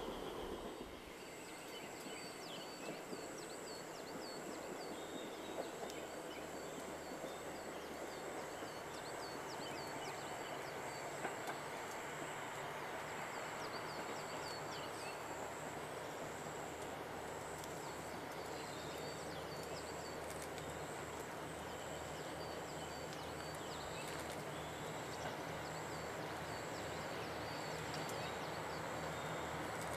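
Distant diesel train engine drone, a low steady hum that slowly grows louder as the train approaches. Short repeated bird chirps and a steady high-pitched whine run over it.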